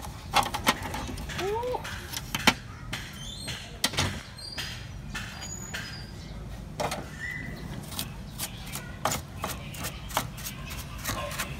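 Clicks and knocks of plastic and metal as the cover panel of a partly dismantled HP Color LaserJet Pro M177fw printer is pulled off and the exposed chassis is handled, loudest in the first few seconds.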